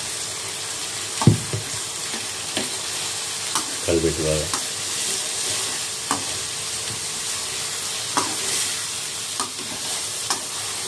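Chopped tomatoes sizzling in hot oil in an aluminium kadai as a steel slotted spatula stirs them, its edge clicking and scraping against the pan, with a sharp clack about a second in.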